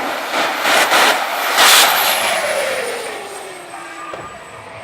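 Jet engine on a jet-powered truck making a pass. A loud rushing blast peaks about two seconds in, then a high turbine whine and a lower tone both fall in pitch as it moves away and fades.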